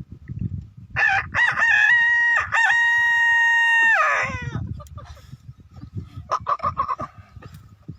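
A man imitating a rooster's crow with his voice: one cock-a-doodle-doo about three seconds long, short broken notes leading into a long held high note that drops away at the end. Low rumbling noise comes before and after the crow.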